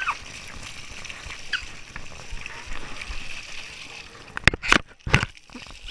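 Splash-park water spray hissing steadily, with a few loud sharp thumps close to the microphone about four and a half to five seconds in.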